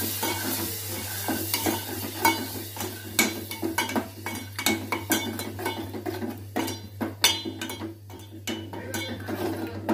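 Green masala paste frying in oil in a hammered metal handi, stirred and scraped with a steel spoon: a sizzle, strongest in the first few seconds, under many quick clinks of the spoon against the pot.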